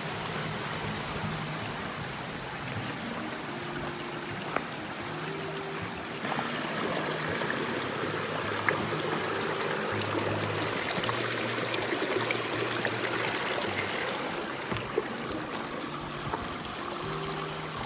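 A mountain stream running, a steady rush of water that gets louder about six seconds in, with a few light clicks over it.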